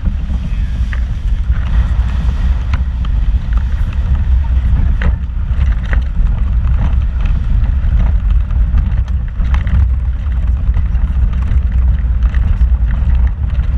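Off-road vehicle driving over a rocky dirt trail, heard from inside the cab: a steady low rumble of engine and tyres, with scattered knocks and rattles as the wheels go over rocks.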